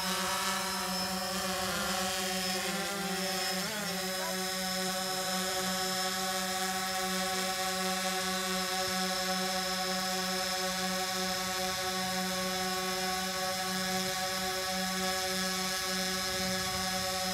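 DJI Phantom 4 Pro quadcopter hovering overhead: the steady buzzing whine of its four propellers. The pitch wavers for the first few seconds as the motors adjust, then holds steady.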